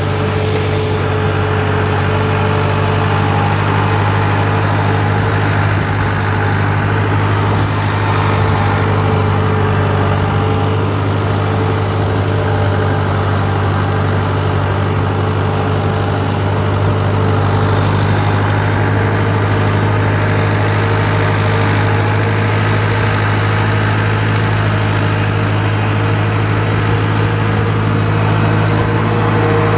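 Tractor engine running at a steady, even speed under load while pulling a tine cultivator through the soil, heard close up from the tractor.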